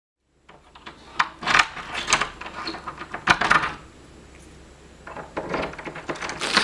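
A door's deadbolt and knob lock being worked: metallic clicks and rattles in two runs, the second starting about five seconds in.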